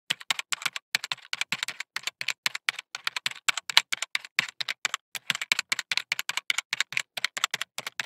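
Rapid keyboard typing: an irregular run of sharp keystroke clicks, several a second, with short pauses about one second in and again about five seconds in.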